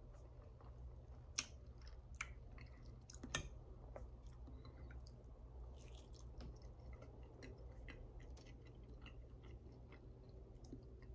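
Faint, close-up chewing and mouth sounds of a man eating sausage, toast and hash browns, with many small clicks and two sharper clicks in the first few seconds. A low steady hum runs underneath.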